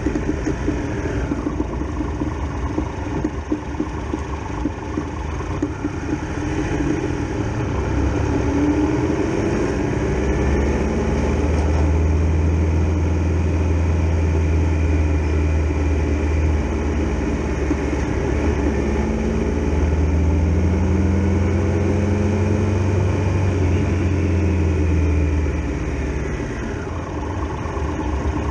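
Triumph Tiger Explorer XRx motorcycle's three-cylinder engine running as it rides at low speed, its pitch rising and falling with the throttle. A louder, deeper rumble fills the middle stretch.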